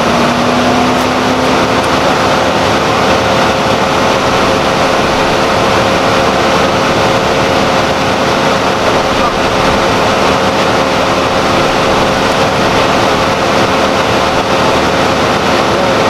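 Loud, steady motor drone with a constant hum, rising slightly in pitch at the start and then holding even.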